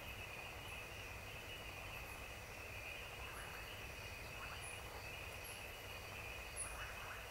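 Field recording of an African savanna soundscape at evening: a steady high-pitched insect chorus, with short high chirps about every second and a few fainter, lower calls from frogs and other insects.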